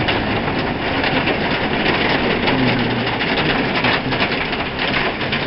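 Hail and rain pelting the barn roof: a dense, steady rattle of countless small impacts.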